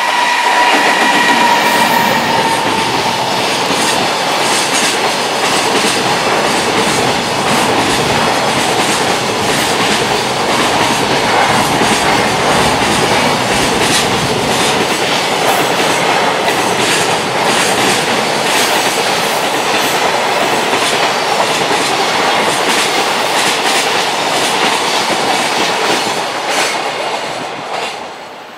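JR Freight EF210 electric locomotive and its long train of container wagons passing at speed: a continuous rumble of steel wheels with rapid, repeated clacks as the wheels cross the rail joints. A high steady tone sounds in the first two seconds and fades, and the whole noise dies down near the end.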